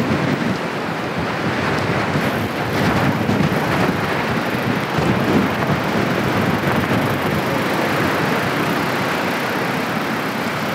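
Steady rush of wind on the microphone of a camera on a moving bicycle, mixed with the noise of rough surf breaking close by.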